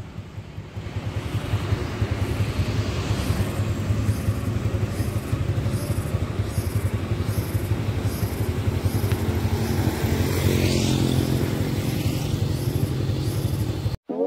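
Road traffic: a steady low rumble of motor vehicles running, which cuts off suddenly near the end.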